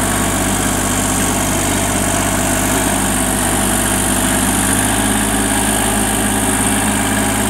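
Kubota tractor engine running steadily as the tractor drives along a trail.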